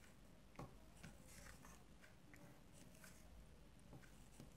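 Faint soft taps of a cardboard strip's edge being pressed onto paper to print thin lines of gouache paint, a few scattered taps over near-silent room tone, the clearest just over half a second in.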